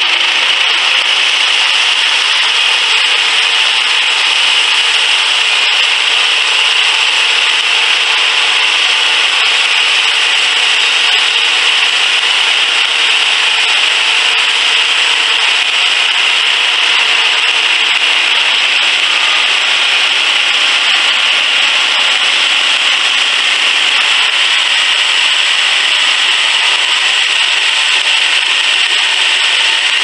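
Homemade bandsaw sawmill cutting along a log: the band blade hisses steadily through the wood while the mill's gas engine runs under load. Loud and unbroken throughout.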